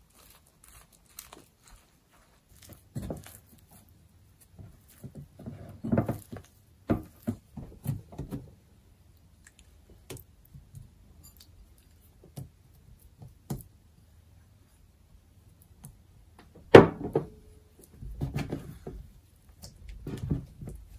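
Dough being worked by hand: a silicone spatula stirs and scrapes a flour dough in a glass bowl, then the dough is kneaded on a wooden tabletop. It makes irregular soft squishing, scraping and knocking, with one sharp thump about three-quarters of the way through.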